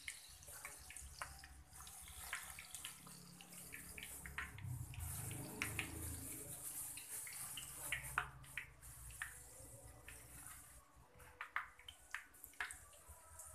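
Cooking oil heating over a low flame in a frying pan with whole spices (bay leaves, cinnamon, dried chilies), bubbling gently with a faint steady hiss and scattered small pops and crackles, a few sharper ones near the end.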